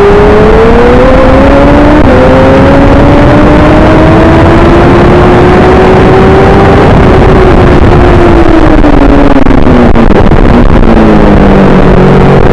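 Racing motorcycle engine at full speed, heard from an onboard camera over heavy wind noise. Its pitch climbs, steps once at a gear change about two seconds in, and keeps rising slowly. From about seven seconds it falls, with a break in the tone near ten seconds, then holds steady.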